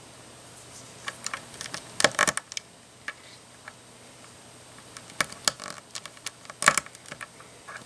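Small plastic LEGO pieces clicking and snapping together as 1x1 round studs are pressed onto nose cones by hand. Scattered clicks, in quick groups about two seconds in and again between five and seven and a half seconds.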